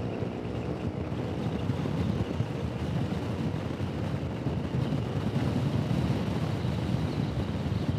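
Steady wind rush and road noise on a helmet-mounted microphone while riding a Honda Forza 125 scooter at road speed, with its single-cylinder engine running underneath.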